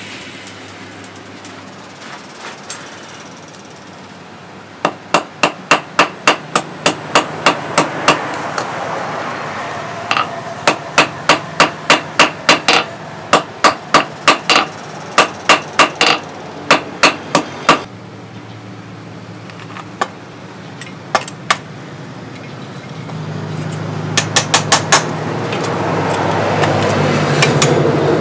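Hand hammer striking hot steel on an anvil in quick runs of ringing blows, about three a second, with pauses between runs. A steady rushing noise runs underneath and grows louder near the end.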